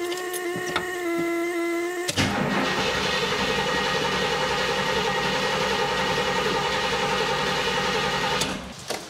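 Cadillac 472 V8 being cranked on the starter for about six seconds without catching, then stopping: a first start attempt after a freshly restored Quadrajet carburetor was fitted. A steady buzzing tone comes first, for about two seconds.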